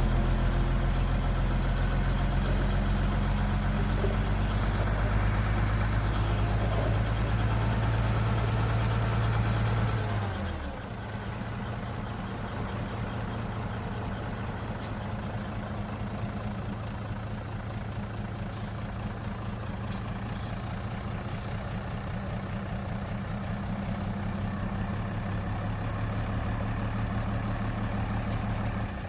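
Heavy diesel engine of earthmoving machinery running hard, then throttling down about ten seconds in to a lower, quieter steady idle.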